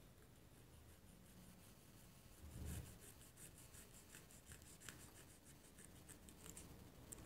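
Faint scratching and rubbing of hands working the wire leads on a table fan's stator coil. A soft bump comes about two and a half seconds in, then a run of light scratches and clicks.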